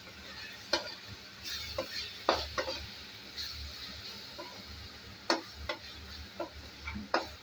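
A spoon stirring and scraping through frying tomatoes, onion paste and curry leaves in a pan over a steady sizzle. It knocks sharply against the pan several times. The masala is being cooked down until its raw smell goes.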